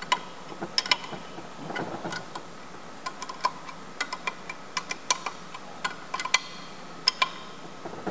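Small hand ratchet clicking as bolts on a turbocharger's compressor housing are tightened: sharp metallic ticks with a brief ring, coming irregularly a few tenths of a second apart.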